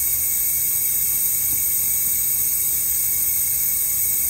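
Steady hiss of compressed air in a turbocharged side-by-side's intake tract, pressurised for a boost leak test, with air escaping at leaking charge-tube joints.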